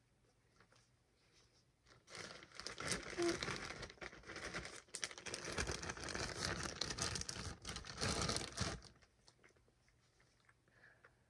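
Clear plastic bag crinkling and rustling as it is handled and opened, starting about two seconds in and dying away near the end.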